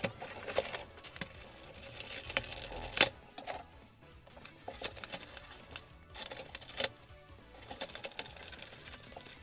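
Clear plastic blister packaging being handled: irregular crinkles and clicks as an action figure and its accessories are pried out of the plastic tray. There is one sharp snap about three seconds in.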